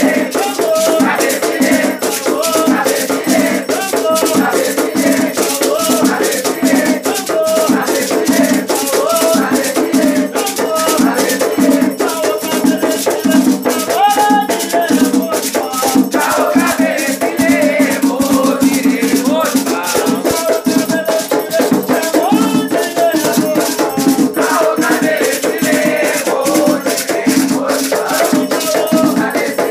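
Batuque ritual music: a shaken rattle keeping a fast, even beat, with voices singing over it.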